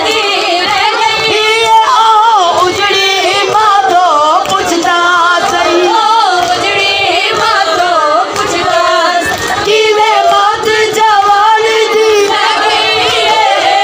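A woman's voice chanting a mourning lament in long, wavering sung phrases, the melodic recitation of a majlis zakirah.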